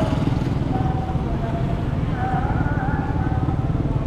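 Steady low rumble of a motorcycle being ridden, its engine running under wind noise on the microphone. A faint wavering tune plays over it for the first few seconds.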